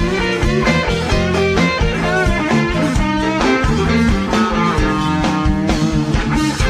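Live electric blues band playing: electric guitar lines with bent notes over steady bass and drums.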